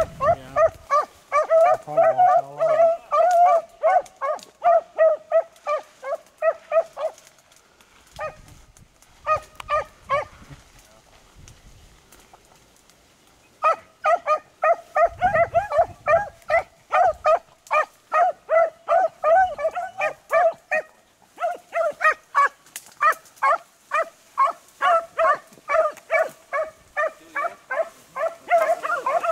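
Beagles baying on a rabbit's track: a rapid run of short, ringing barks. The barking stops about seven seconds in, gives a short burst a little later, and picks up again about halfway through.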